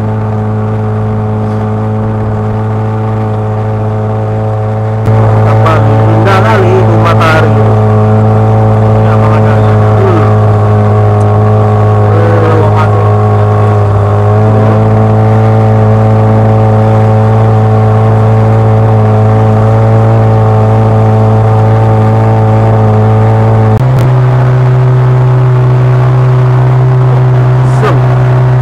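Small wooden fishing boat's inboard engine running steadily under way, a loud low drone. Near the end the engine note changes abruptly to a different steady tone.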